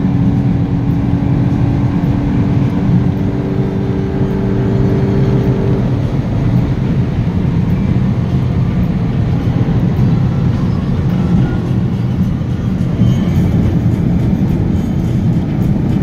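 Volkswagen Golf 8 GTI Clubsport's 2.0-litre turbocharged four-cylinder engine and road noise heard from inside the cabin at Autobahn speed: a steady, loud drone. A held hum sits over it for about the first six seconds, then fades into a more even roar.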